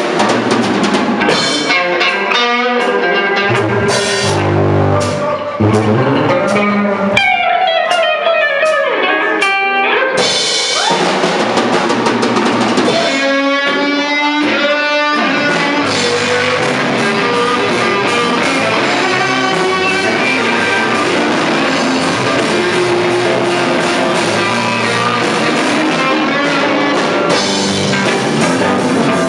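Live rock band playing a blues-funk instrumental: electric guitars over a drum kit.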